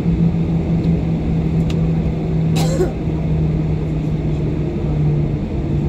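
Jet airliner's engines droning steadily, heard inside the cabin as the plane taxis, with a low hum that drops slightly in pitch about five seconds in. A brief rustle or knock about two and a half seconds in.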